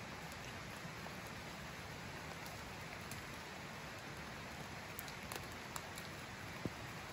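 Steady rain, with a few sharp drop ticks standing out in the last couple of seconds.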